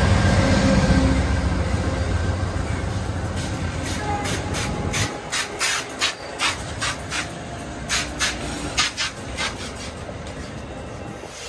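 Amtrak passenger cars passing at speed: a steady rumble of wheels on rail, falling off about five seconds in. From about three seconds in comes a string of sharp, irregular clicks and clacks from the wheels on the track.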